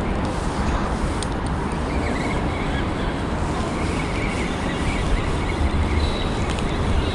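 Steady outdoor noise: a constant low wind rumble on the microphone over background city noise, with a faint thin high tone from about two seconds in.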